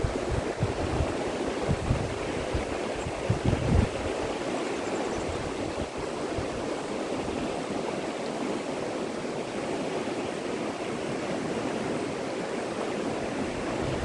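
River water running over rocky shallows, a steady rushing. Wind buffets the microphone during the first few seconds.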